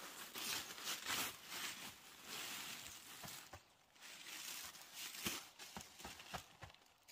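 Irregular rustling and crinkling from something being handled close by, with a few short light knocks about five to seven seconds in.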